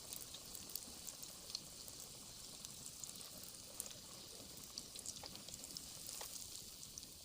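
Breaded chicken deep-frying in oil: a faint steady sizzle with scattered crackles and pops.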